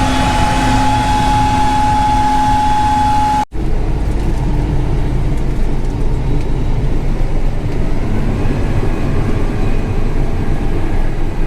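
Combine harvester running steadily, carrying a high whine and a lower hum over its rumble. About three and a half seconds in the sound cuts suddenly to a broader, deeper, steady machine rumble without the whine.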